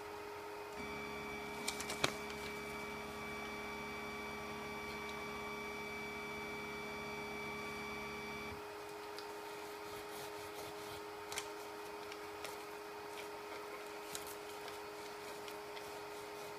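Delta 3D printer's stepper motors whining steadily for about eight seconds as the print head is lowered to the bed, with a few clicks near the start, then cutting off suddenly. After that a sheet of paper rustles and scrapes as it is slid under the nozzle to check the nozzle-to-bed gap, over a steady hum.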